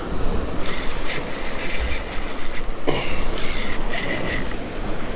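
Fishing reel cranked in bursts while an angler fights a hooked horse-eye jack, its gears rasping and whirring, over steady wind rumble on the microphone.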